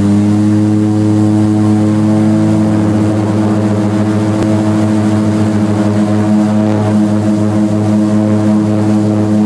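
Seaplane's propeller engines running loud and steady, heard from inside the cabin as a low hum with a slight wavering.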